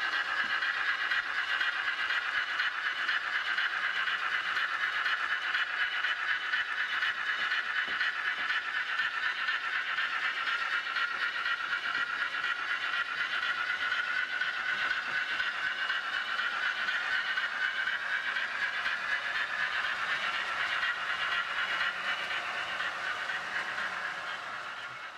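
Model trains running on a layout: a steady whine from the locomotive motors with a light rattle of wheels on the track. It fades near the end.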